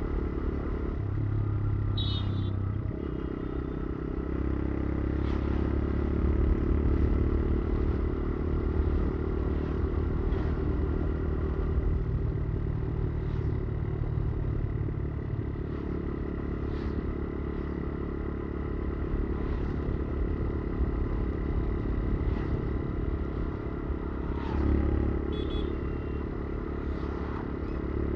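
Motorcycle engine running under way. Its note shifts with the throttle about 1 to 3 seconds in and again near 25 seconds. Brief high chirps come twice, about two seconds in and near the end.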